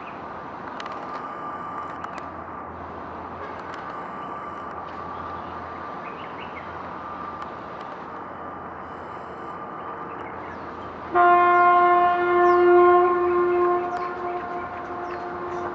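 A ship's horn sounds one loud long blast, starting suddenly about eleven seconds in, holding for about three seconds and then fading away. Before the blast there is only steady background noise.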